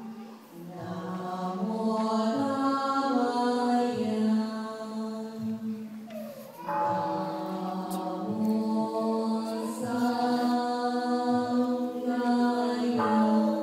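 Buddhist chanting by several voices, slow held notes that step up and down in pitch, with a short pause for breath about six seconds in.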